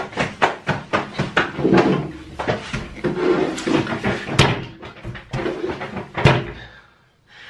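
Fists banging hard and fast on a table in a tantrum, many irregular bangs, several a second, mixed with strained shouting, stopping near the end.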